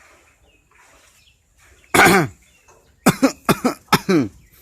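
A pet jalak (talking starling) mimicking a human cough: one loud cough about two seconds in, then a quick run of several coughs about a second later, each dropping in pitch.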